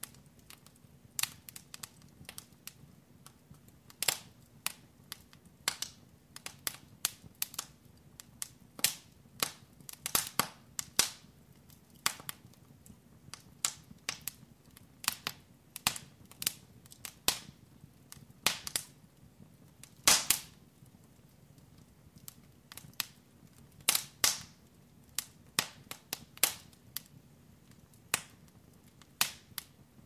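Wood fire burning in a fireplace, crackling with irregular sharp pops and snaps, some much louder than others, the loudest about twenty seconds in, over a faint low steady rumble.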